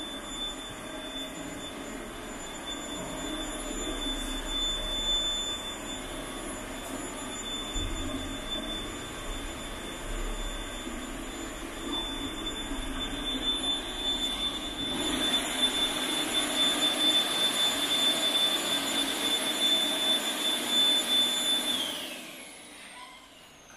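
Pet grooming blower dryer running, a steady rush of air with a high motor whine. It grows louder about two-thirds of the way through, then is switched off near the end, its whine falling as the motor spins down.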